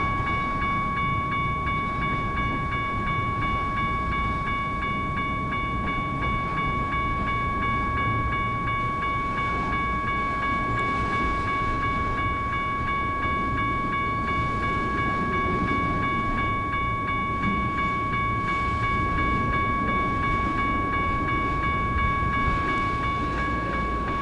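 Intermodal freight train rolling through a grade crossing, its cars giving a steady low rumble. Over it the crossing's General Signals Type 1 electronic bells sound an unbroken high ringing tone.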